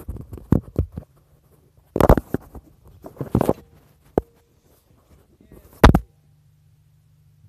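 Phone knocked and rustled about as it is set down in a car's trunk, then one loud thump about six seconds in as the trunk lid shuts. After that only a faint low hum comes through, muffled by the closed trunk.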